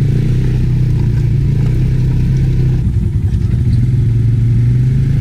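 ATV engine running at a steady, even speed.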